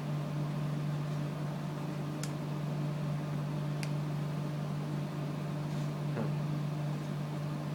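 A steady low electrical hum, like a fan or appliance, with two faint small clicks about a second and a half apart.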